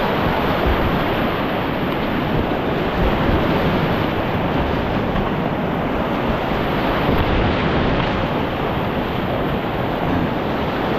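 Steady rush of whitewater on a steep boulder-strewn creek rapid, loud and close.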